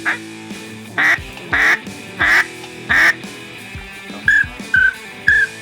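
Four loud duck quacks about half a second apart, then a run of short high whistles from about four seconds in, over background music.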